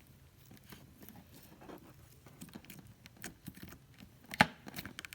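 Soft slime being handled by hand: a scatter of small sticky clicks and crackles, with one sharp, louder click about four and a half seconds in.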